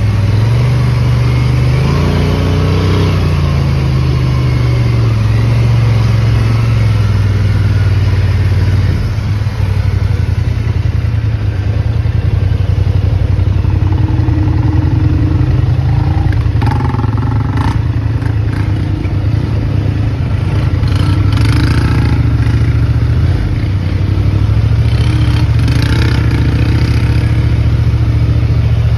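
ATV engine running close by, its pitch shifting briefly about two seconds in and turning rougher and less even through the middle stretch. A few short clattering knocks come about two-thirds of the way through.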